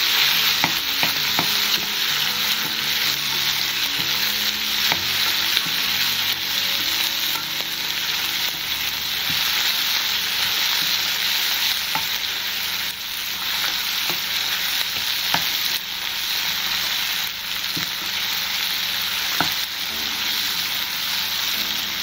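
Chopped tomato, onions and curry leaves sizzling in hot oil in a frying pan while being stirred with a wooden spatula: a steady sizzle with scattered small clicks.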